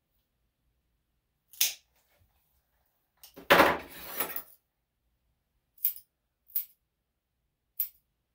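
Dog nail clipper cutting a nail with one sharp click, then a longer, louder clatter near the middle, then three crisp snips of grooming scissors trimming the hair on the paw.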